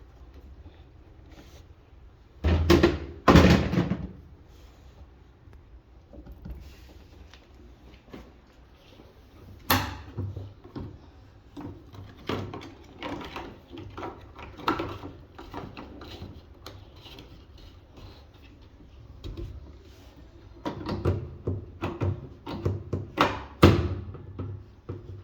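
Irregular clunks, knocks and scrapes of hard parts being handled on a washing machine under repair: two loud clunks a few seconds in, a sharp knock near the middle, and a busy run of knocks near the end.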